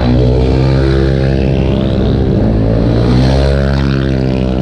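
Motor scooter engine running at a steady speed close by, a deep even hum that holds its pitch.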